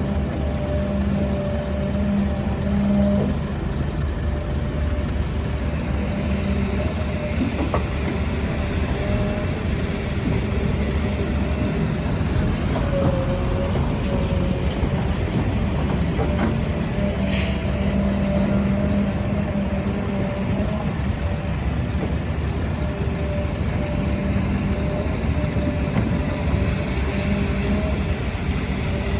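Heavy diesel construction machinery running steadily, an excavator and dump trucks at work, its engine hum wavering in pitch as the load changes. One short sharp sound a little past halfway.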